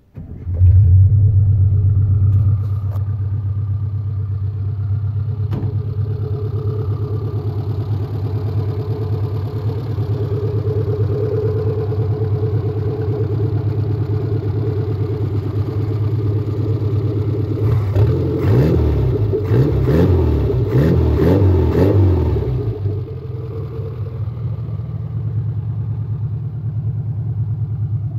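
1987 Suzuki Samurai's 1.3-litre four-cylinder engine, breathing through a long-tube header, starts right up about half a second in and settles into a steady idle. About two-thirds of the way through it is revved in several quick blips, then drops back to idle.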